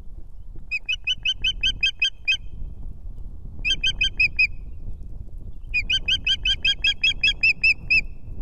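Osprey calling in three runs of rapid, high, repeated chirps. The first run has about nine notes, the second is short, and the longest comes near the end. A steady low rumble runs underneath.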